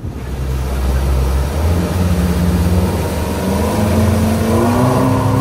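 Twin Yamaha 200 hp outboard engines running under hard throttle, their pitch climbing from about three seconds in as the boat accelerates. The engines run over a steady rush of wind and water from the wake.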